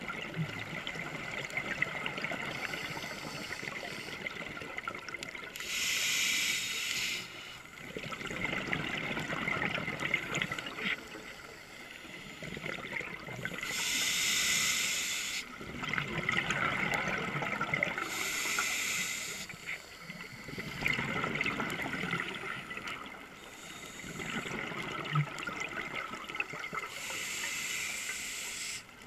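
Scuba diver breathing through a regulator underwater. Short hissing inhalations alternate with longer bubbling, gurgling exhalations, over several breaths.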